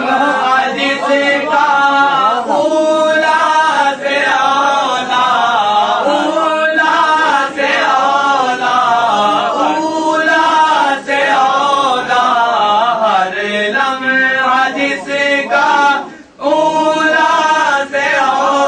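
Male voice chanting devotional verse in a drawn-out melodic recitation, with a brief break about sixteen seconds in.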